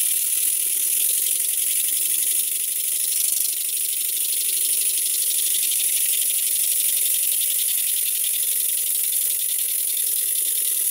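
Stuart Twin Launch twin-cylinder model steam engine running fast on compressed air: a steady, rapid hiss of exhaust beats with a light mechanical rattle, its valve timing freshly set.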